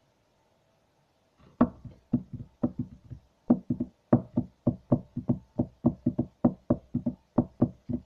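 Rapid knocking, about three to four sharp knocks a second in an uneven, drum-like rhythm, starting about a second and a half in.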